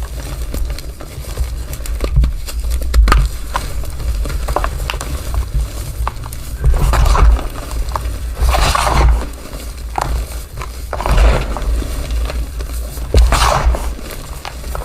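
Black gym chalk and charcoal powder being crushed: dry crunching with scattered sharp crackles, and a few longer, louder crumbling crunches in the second half.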